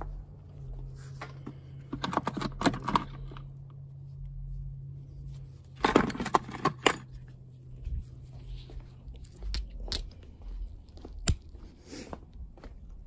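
Loose steel sockets and ratchet extensions clinking and rattling against each other as a hand rummages through a socket box. The rattling comes in two bursts, about two and six seconds in, with scattered single clicks and knocks after.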